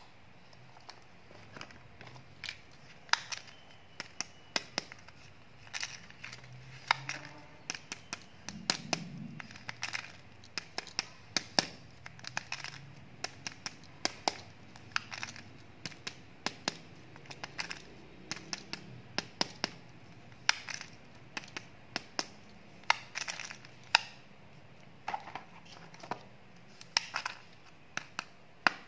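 Foil wrappers of chocolate surprise eggs crinkling and crackling as hands handle and turn the eggs, in many sharp, irregular crackles.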